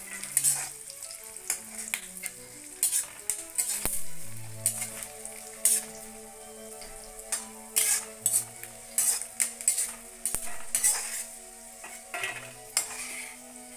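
Cashews, almonds and raisins sizzling as they fry in ghee in an iron kadhai, with a steel ladle scraping and clinking against the pan many times as they are stirred.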